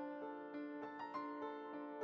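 Soft background piano music, with notes struck a few times a second over held chords.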